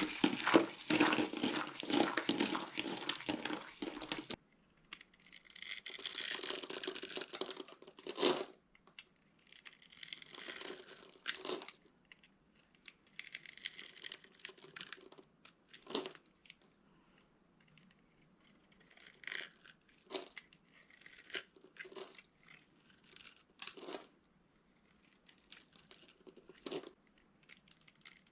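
Dry bar soap being crushed and crumbling. There is dense crunching and crackling for about the first four seconds, then shorter crackly bursts every couple of seconds, with sharp snaps in between.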